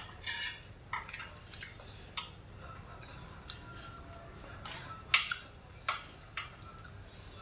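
Metal spoon and chopsticks clicking against a stainless steel meal tray as food is picked up and eaten, with soft mouth sounds between the scattered clicks. The loudest click comes about five seconds in.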